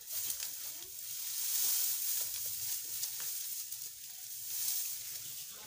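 Dry, rain-damaged mustard plants rustling and crackling as they are lifted and shaken by hand to thresh out the seed.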